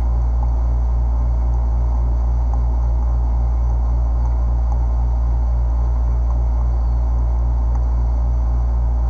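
A loud, steady low hum with no speech.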